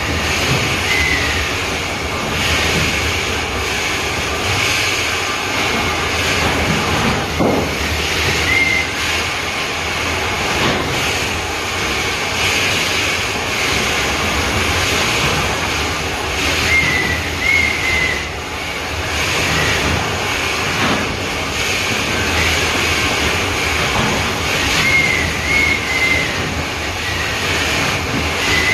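Shaft-mucking machinery running at the shaft bottom: a loud, steady mechanical roar with hiss, a few sharp knocks, and short high squeaks that recur every few seconds.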